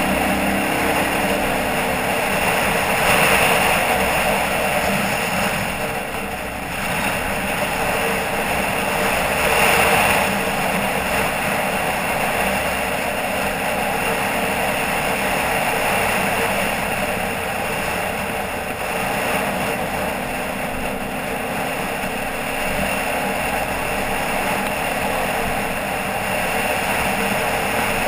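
An ATV's engine running steadily as the quad travels along a dirt road, under a constant rushing noise of wind and road.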